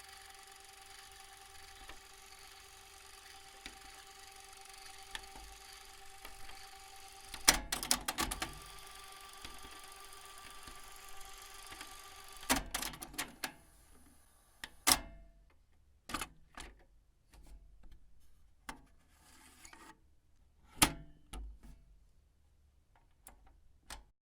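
Cassette player's tape mechanism running with a steady hum and hiss, then a quick run of sharp mechanical clicks from its controls, the transport running at a different pitch for a few seconds, more clicks, and the motor stopping. Scattered single clicks and clunks of the deck's mechanism follow.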